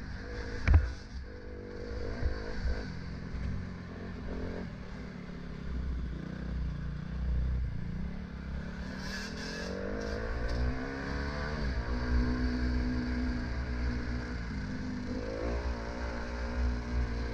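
Dirt bike engine running on a dirt trail. Its pitch climbs as the throttle opens about halfway through and again near the end. A steady low wind rumble sits under it, with a few clattering knocks near the start.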